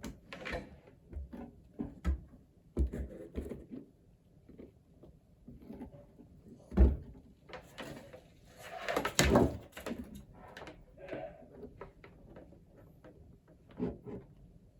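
Scattered knocks, clicks and clunks of objects being handled in a small room, the sharpest knock about seven seconds in, with a short noisy rush around nine seconds.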